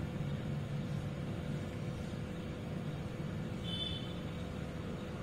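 Steady low background rumble with a faint constant hum. A short, high-pitched tone sounds briefly near the end.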